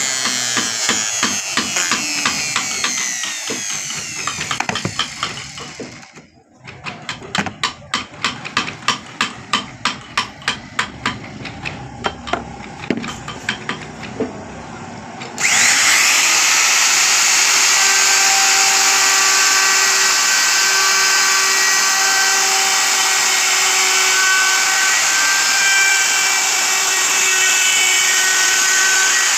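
Dong Cheng plunge router cutting a relief groove into a wooden panel, then stopping. Next comes a run of sweeping strokes, about two a second, as sawdust is brushed off the carving. About halfway through, the router starts again suddenly and runs steadily with a high whine.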